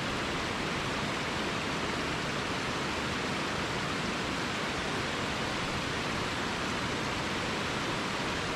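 Shallow mountain stream cascading over rocks: a steady, even rush of water.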